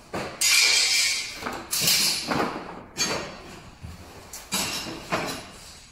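Sharp knocks and pops from a Honda CR-V's front fender sheet metal being worked in paintless dent repair, about six at irregular intervals.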